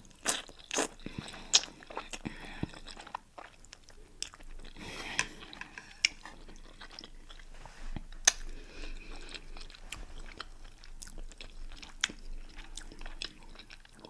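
A person eating close to the microphone: wet chewing, with sharp mouth smacks and clicks scattered throughout.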